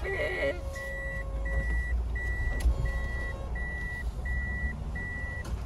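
A car's reversing beeper sounding evenly spaced, high, steady beeps, about one and a half a second, as the car is backed into a parking space, over a low engine rumble.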